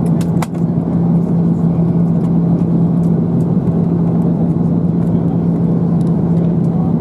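Steady engine and airflow noise inside the passenger cabin of an Airbus A330-300 in its climb, with a constant low hum under the rush of air. A few faint clicks just after the start.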